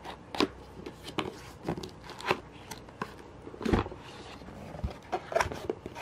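Hands handling and opening a cardboard box: an irregular string of taps, knocks and scuffs on the cardboard, with one heavier thump a little before four seconds in.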